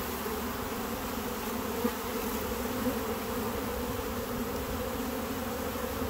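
Swarm of honeybees buzzing steadily: a dense cluster on a box with many bees flying close around it.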